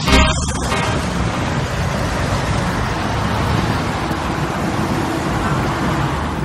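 Steady road traffic noise: a continuous rush of passing cars and buses.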